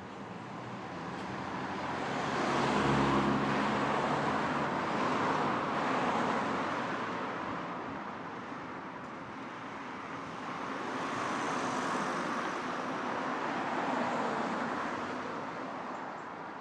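Light daytime street traffic: vehicles pass one after another, rising and fading in turn, with the pitched hum of an engine on the loudest pass about three seconds in.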